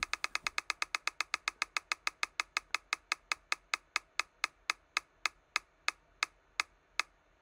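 Online mystery-box spinner's tick sound effect: a rapid run of sharp clicks, one for each prize passing the marker, slowing steadily from about nine a second to about three a second as the reel coasts to a stop.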